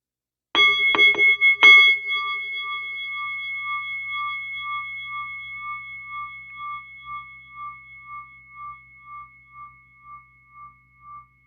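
A bell-like metal chime struck four times in quick succession about half a second in, then ringing on and slowly dying away, its tone pulsing as it fades.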